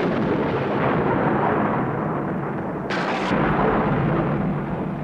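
Thunder rumbling loudly, with a sharper crash about three seconds in, then slowly dying away.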